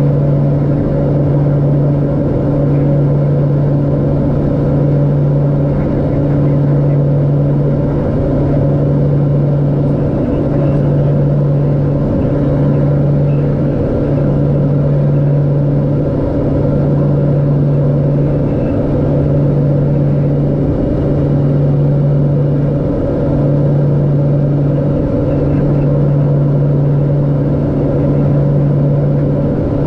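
Twin turboprop engines and propellers of a LET L-410 in cruise-descent, heard from inside the cockpit as a loud, steady drone. The drone has a low hum that swells and fades in a slow, regular pulse about every one and a half to two seconds.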